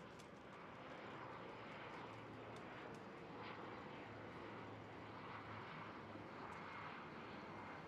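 Faint outdoor city background: a steady, distant hum of traffic with slow gentle swells and a few faint ticks.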